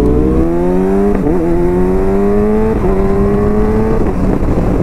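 Kawasaki ZX-6R inline-four sportbike engine accelerating hard through the gears: the engine note climbs in pitch, drops at an upshift about a second in and again near three seconds, then climbs once more before giving way to a steady rushing noise near the end.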